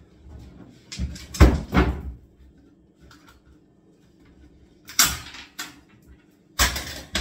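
Old kitchen cabinet units being knocked apart and flat-packed by hand, the panels banging and clattering: a cluster of knocks about a second in, another about five seconds in, and a louder run near the end.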